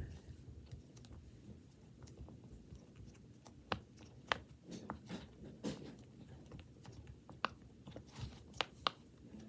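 Scattered faint clicks and soft pops from a large silicone pop-it fidget toy as its bubbles are pressed, about seven clear clicks spread over the last six seconds.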